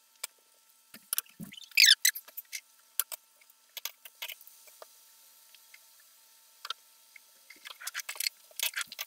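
Scattered small clicks and taps of kitchen work, with a louder brief scrape about two seconds in and a quick run of taps near the end.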